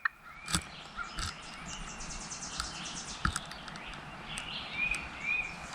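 Quiet woodland ambience: small songbirds chirping faintly and intermittently over a steady soft hiss, with a few brief clicks.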